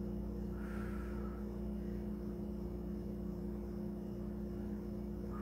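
Steady low hum with a few fixed tones under it, like a fan, air conditioner or electrical hum in the room.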